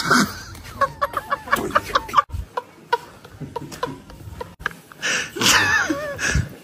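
Hearty laughter from a man, broken into strings of short, quick bursts that sound almost like clucking. It swells into louder, wavering high whoops near the end.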